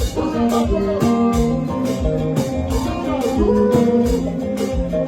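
Guitar solo over a band: plucked lead lines with notes bending in pitch, over a steady drum beat.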